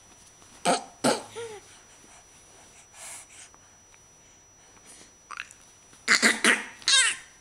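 A baby's short, breathy vocal sounds close to the microphone: two brief sounds about a second in, one sliding in pitch, then a louder run of quick breathy bursts near the end, the last one stuttering rapidly.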